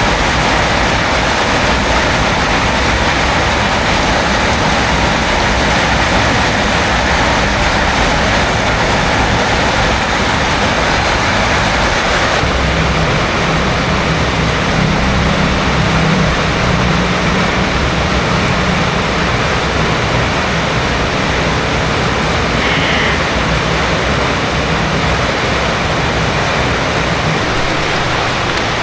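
Heavy rain falling steadily, a dense even hiss. A low motor hum rises over it about thirteen seconds in and fades out several seconds later.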